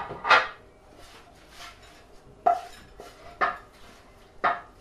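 A plate and a frying pan clinking as food is served from the pan onto the plate: four sharp clinks, about a second apart.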